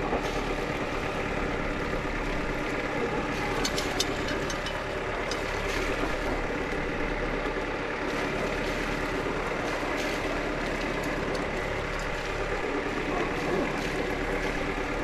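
Sailboat's inboard auxiliary engine running steadily. A few light clicks come about four seconds in.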